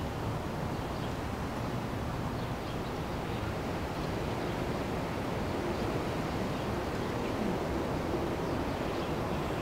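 Steady outdoor background noise: an even low rumble with hiss, with no distinct events.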